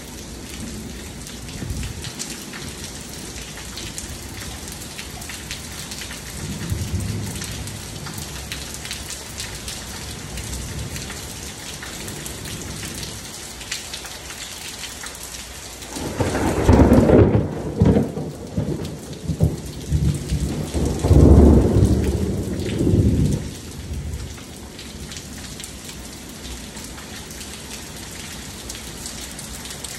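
Steady rain falling on a wet pool deck and pool. A long rumble of thunder with several loud peaks begins a little past halfway and lasts about eight seconds. A fainter rumble comes about a quarter of the way in.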